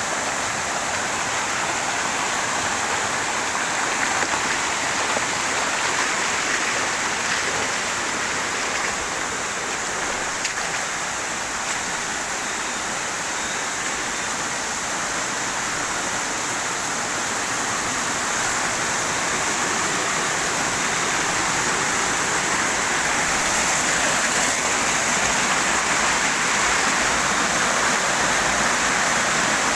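Stream water rushing and splashing over rocks: a steady, even noise that grows slightly louder in the second half.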